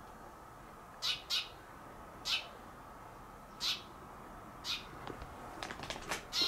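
A bird calling in short, high chirps, spaced a second or so apart, coming quicker and busier near the end.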